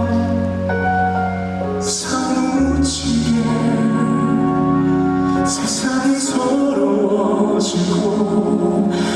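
Live concert recording of a male vocalist singing a slow song with band accompaniment, holding long notes over steady low accompaniment.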